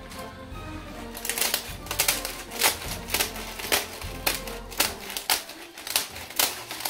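Scissors snipping through brittle dry güllaç starch-wafer sheets: a run of crisp, crackly cuts, about two a second, starting about a second in.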